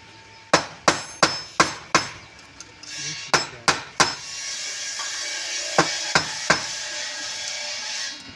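Hammer striking in quick runs: five blows about three a second, then three, then three more, each with a sharp ringing edge. A steady high hiss runs underneath from about three seconds in.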